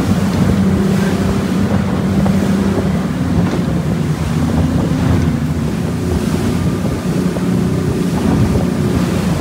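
Outboard-powered fishing boat running at speed on the open ocean: a steady drone from its twin outboard engines over rushing water and spray off the hull, with heavy wind buffeting the microphone.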